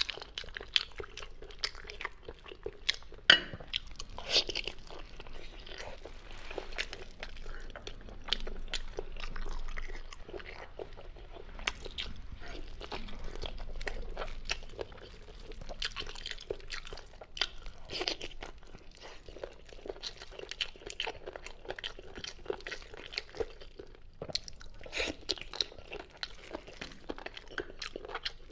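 Close-up chewing of braised meat with crunchy cartilage: a stream of irregular crunches and crackles, with one sharp crunch about three seconds in standing out above the rest.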